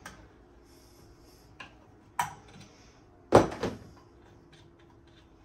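Metal parts and hand tools knocking on a workbench: a small click, a sharp knock about two seconds in, then a louder clank with a short ring about a second later. These are the sounds of the trolling motor's propeller nut and washers being taken off.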